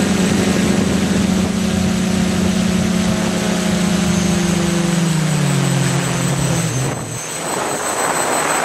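DIY drone's electric motors and propellers whirring steadily, then spinning down with falling pitch and stopping about seven seconds in, with the aircraft at rest on the grass. A rushing noise follows near the end.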